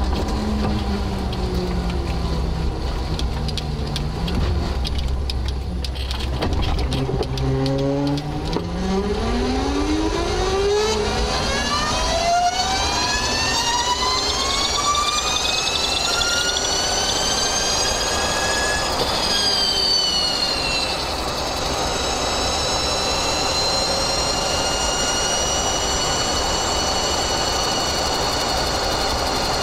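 Electric motor and differential of a 1969 MGB roadster whining while driving, picked up loudly by a microphone beside the diff and motor. The whine, made of several tones together, rises steadily in pitch with road speed for about ten seconds, dips briefly past the middle, then holds steady while cruising.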